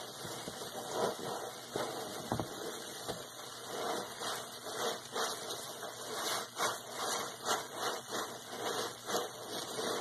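Sponge being squeezed and wrung in sudsy water by rubber-gloved hands: wet squelching and crackling foam, with irregular squishes several times a second.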